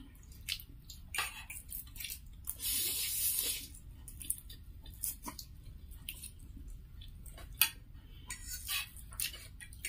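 Two people slurping and chewing instant noodles, with forks clicking and scraping on plates. There is a longer slurp about three seconds in.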